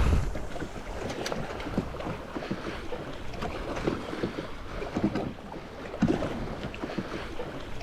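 Wind buffeting the microphone and water slapping around a jet ski's hull out on open water, with scattered small clicks. The noise is loudest at the very start, then steady.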